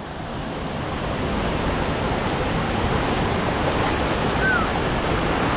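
Steady rush of a waterfall: an even wash of falling water, growing slightly louder over the first couple of seconds.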